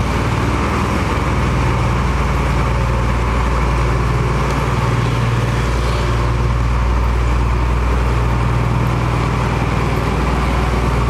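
Diesel engine of heavy road-construction machinery running steadily with a constant low drone.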